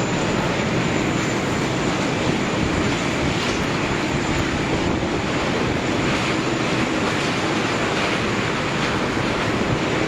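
Steady roar of jet aircraft engines, unchanging in level, with a faint steady hum under the noise.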